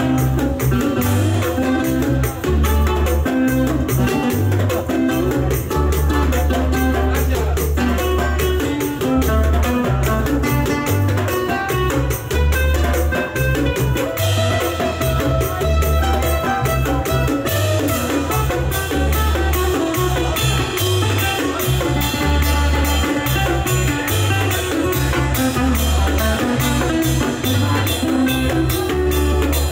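Live trio playing an instrumental passage: acoustic guitar over electric bass lines and hand-played drums, with a steady Latin groove.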